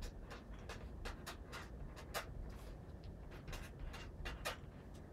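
Faint, irregular short scratches and ticks of a pen writing on paper, several strokes a second, stopping just before the end.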